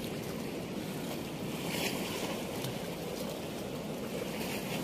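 Steady rush of water pouring through a river weir's sluice gates, an even noise with no break or change.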